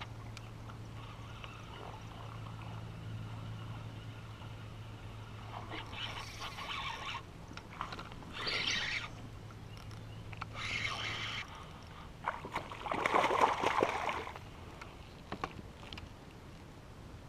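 Water splashing around the kayak in several short bursts, the loudest about 13 seconds in, over a steady low hum that stops about 11 seconds in.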